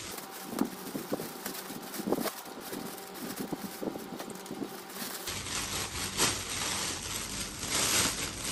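Clear cellophane gift wrap rustling and crinkling as the ribbon is untied and the wrap is pulled open, with scattered small handling clicks. From about five seconds in the crinkling turns denser and louder, in bursts.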